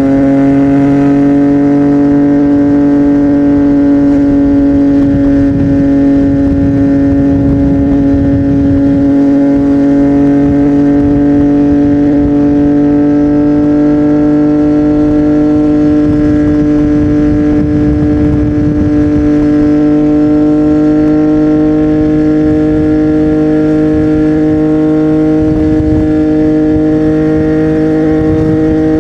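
CFMOTO 675NK's three-cylinder engine running through a Burnout titanium exhaust at steady revs, its note rising only slightly in pitch over the stretch.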